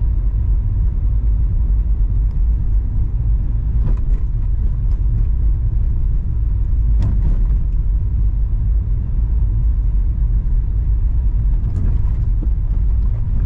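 Car driving along a dirt road: a steady low rumble of tyres and engine, with a few faint knocks from bumps about four, seven and twelve seconds in.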